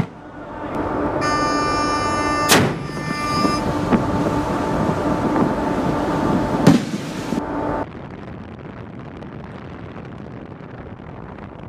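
Warship's deck-mounted decoy launcher firing twice: two sharp booms about four seconds apart over a steady hum with several held tones. About eight seconds in this gives way to steady wind noise on the microphone.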